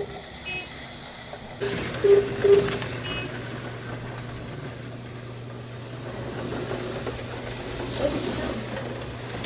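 HO-scale Aurora T-Jet slot cars' small electric motors and gears whirring as the cars run around the track, swelling as they pass close by. A steady low electrical hum sets in about a second and a half in.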